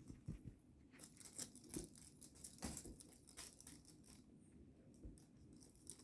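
Faint rustling and light scratchy clicks, scattered and irregular, as cats play with a noisy toy.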